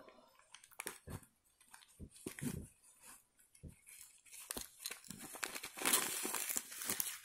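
Hands handling and opening a burlap drawstring pouch: scattered rustles and light knocks of fabric, then denser crinkling rustle for the last two seconds or so.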